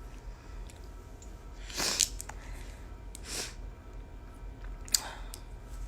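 A person breathing close to a phone microphone: three short breaths or sniffs, about two, three and five seconds in, with a sharp click near the end.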